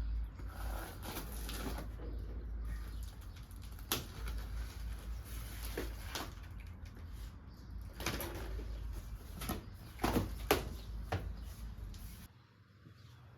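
Scattered knocks and clanks of sheet-metal smoker parts being handled and fitted, as a front folding shelf goes onto a pellet smoker, over a steady low hum. The sound drops away abruptly near the end.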